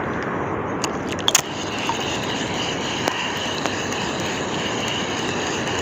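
Steady rush of wind and water on the microphone of a wrapped phone held just above the water, with a couple of light clicks about a second in. A spinning reel is then cranked, adding a steady whir.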